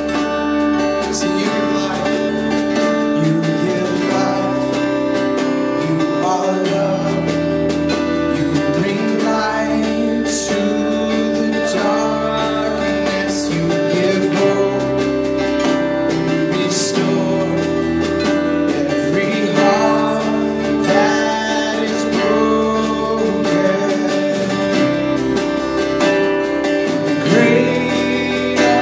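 Live worship band playing a contemporary worship song: strummed acoustic guitar over electric bass and drums, with a few cymbal crashes.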